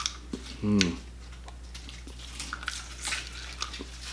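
Close-up chewing and wet mouth clicks of a person eating seafood, with a short hummed "mm" just under a second in.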